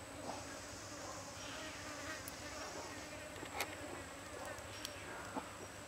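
Insects buzzing, with a steady high-pitched drone and a hiss in the first half, and a few faint sharp clicks, the clearest a little past the middle.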